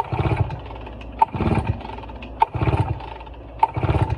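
Recoil starter of a Redmax EBZ backpack blower pulled four times, about a second apart. Each pull is a sharp click and then half a second of the two-stroke engine cranking over without firing, for a compression test with the gauge in the spark plug hole and the throttle wide open; the engine has over 150 psi of compression.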